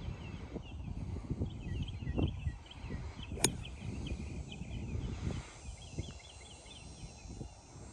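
Birds chirping in quick repeated phrases, with wind buffeting the microphone and one sharp click about three and a half seconds in.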